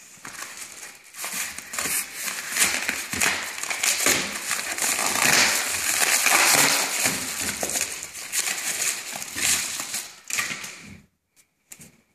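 A padded paper mailer being torn open and crumpled by hand: a dense, continuous crinkling and tearing that stops suddenly about a second before the end, followed by a couple of faint clicks.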